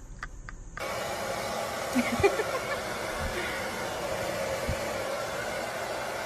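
A steady blowing noise from a motor, like a hair dryer, starts suddenly about a second in and holds even throughout. A couple of short rising squeaks come about two seconds in.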